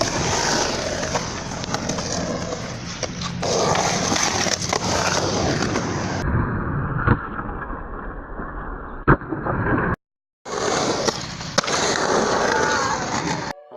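Skateboard wheels rolling on pavement, with board clacks and impacts from tricks and one sharp board impact about nine seconds in. The sound drops out briefly around ten seconds in.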